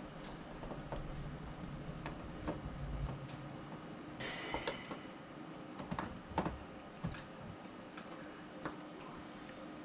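Small metal clicks and taps from carburetor parts being fitted and turned by hand on a Rochester carburetor, with a screwdriver working near the end. There is a short scraping rustle about four seconds in.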